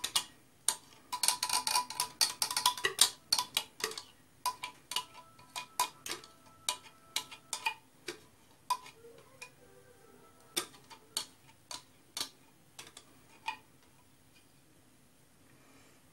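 Silicone spatula scraping and tapping against the inside of a glass blender jug to get the mixture out: a run of sharp clicks, dense in the first few seconds, then sparser, stopping about three-quarters of the way through.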